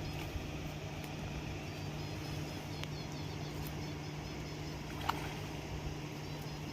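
A steady low hum over outdoor background noise, with a few faint short clicks.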